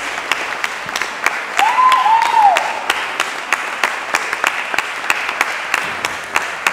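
Audience applauding with dense, steady clapping. About two seconds in, one person gives a short two-note call that rises and falls.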